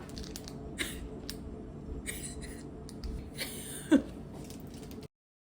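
Light handling sounds, with soft rustling and a scatter of small clicks. About four seconds in there is a short, sharp rising squeak. The sound then cuts off abruptly to silence.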